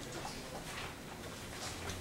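Faint rustling and shuffling of paper handouts being passed around, in short soft bursts.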